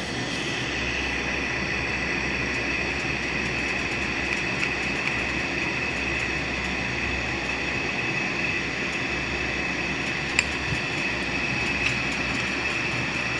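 Steady whir of an electric motor running, with two sharp metal clicks near the end as a screwdriver meets the pulley.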